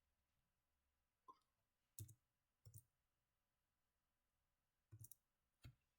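Five faint computer mouse clicks, unevenly spaced, with near silence between them.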